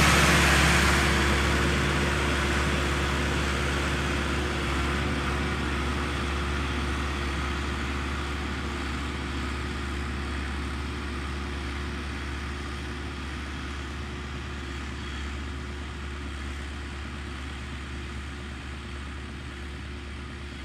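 Massey Ferguson 385 tractor's four-cylinder diesel engine running steadily as it pulls a tillage implement through dry soil. The drone fades gradually as the tractor moves away.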